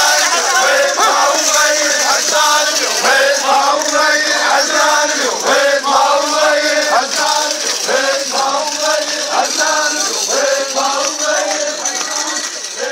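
A crowd of men chanting a hosa together, the rhythmic Iraqi tribal chant, the same short phrase repeated in a steady beat of about two syllables a second over a hiss of crowd noise.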